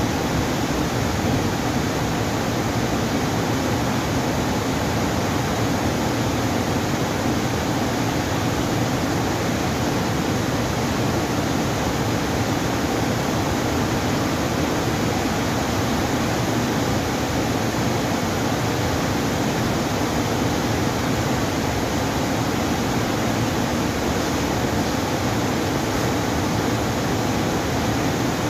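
Dam water rushing steadily, an even noise that does not change.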